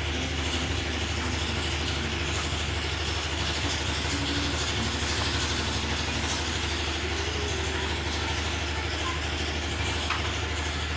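A steady low hum under a constant even hiss, with no clear rhythm of strokes.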